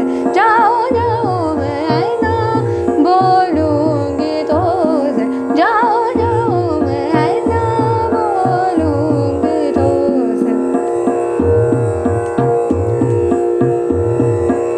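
A woman singing a khayal in Raag Chandrakauns, in fast, wavering melodic runs, over a steady drone and a regular tabla beat.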